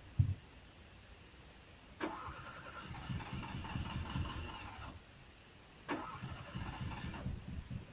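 A Fiat's engine cranked on its starter in two tries, one about two seconds in lasting some three seconds and another starting about six seconds in, turning over in a rhythmic pulse without catching, with a sharp pop right at the start. The engine will not start: it fires on only one or two cylinders, which the owner guesses could be old spark plugs or wet wires.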